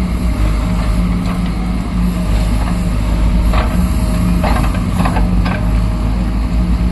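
JCB backhoe loader's diesel engine running steadily under work, with a few short clanks or scrapes in the middle as it moves soil.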